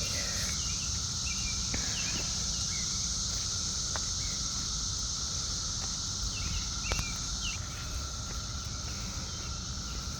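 Dense cicada chorus: a steady, unbroken high drone, with a few short bird chirps over it.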